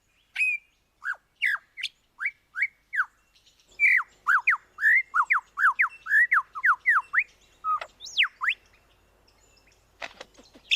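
Male superb lyrebird singing: a string of clear whistled notes, each sweeping down in pitch, that quickens into a rapid run in the middle, then a rising-and-falling note and a few faint clicks near the end. The song is built from copied calls of other birds.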